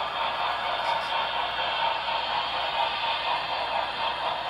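HO scale model train running along the track: a steady rolling and motor rush with no distinct clicks or tones.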